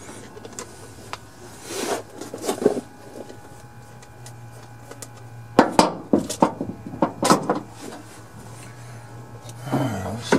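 Distributor being worked by hand into its bore on a Suzuki Carry engine, twisted back and forth so its drive will engage: scattered clicks, knocks and scraping of metal and plastic parts, with a quick run of sharp clicks about halfway through. The shaft has not yet dropped into place.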